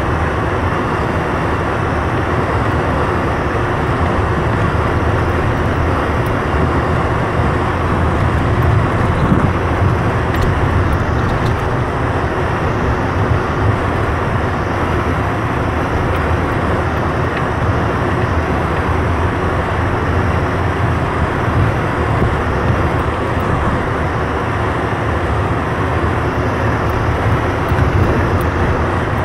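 Steady engine and tyre rumble heard from inside a vehicle's cabin, driving slowly over a snow-covered dirt road.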